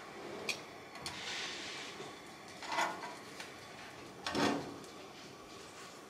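Metal kitchen tongs clacking and scraping against a stovetop griddle as a filled tortilla is folded, with a few short knocks and a brief hiss about a second in.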